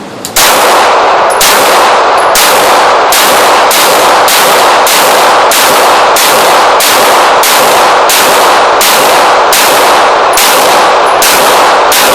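Beretta PX4 Compact 9mm pistol fired in a steady string of about seventeen shots, roughly one every half second to second, emptying a 17-round magazine. The shots are very loud, each ringing into the next.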